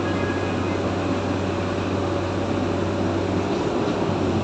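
A steady low mechanical hum with a constant rushing background noise.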